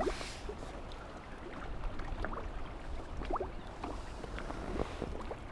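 Small waves lapping and splashing against the bank and the platform legs, with wind rumbling on the microphone. A short hiss at the very start.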